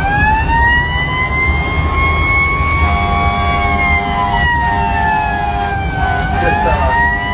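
Fire engine siren wailing over the truck's engine and road rumble, heard from inside the cab. It winds up to a high held pitch, sinks slowly about halfway through, then climbs again near the end, with a second steady tone joining about three seconds in.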